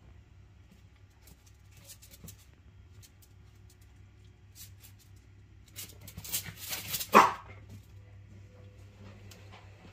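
A dog at play with a cat: faint clicks and scuffling, then a single short, sharp bark a little after seven seconds in.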